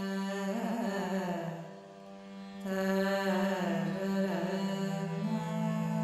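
Carnatic alapana in raga Ranjani over a steady drone: a melodic line slides and bends through ornamented pitches, fading briefly about two seconds in before resuming.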